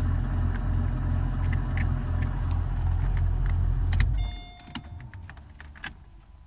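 Hydraulic pump for the Mercedes SL's folding roof running with a loud throbbing hum, about three pulses a second, then cutting off abruptly about four seconds in, while the roof fails to move. A short electronic beep and a few clicks follow.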